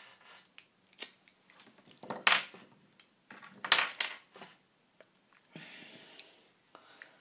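Hands handling a small battery, clip leads and wires: scattered small clicks and rustles, with a sharp click about a second in and two louder bouts of rustling around two and four seconds in.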